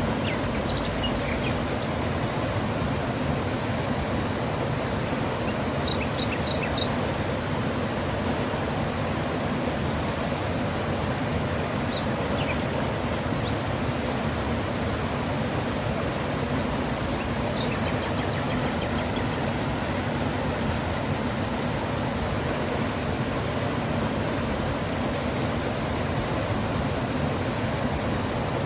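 Mountain river flowing, a steady rushing of water. A faint high chirp repeats about twice a second through much of it, with a few brief chirps around it.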